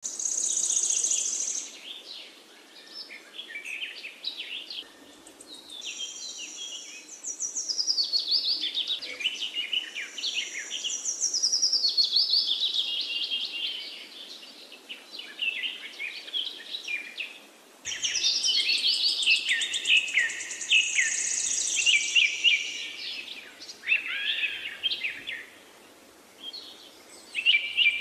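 Birds singing: overlapping quick chirps and fast trills, with runs of notes that fall in pitch, broken by a few short lulls.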